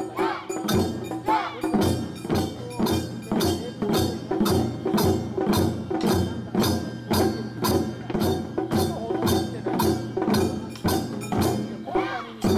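Japanese taiko ensemble playing in unison: rows of barrel-shaped nagado-daiko on slanted stands and a large drum struck with wooden bachi sticks in a steady, driving beat.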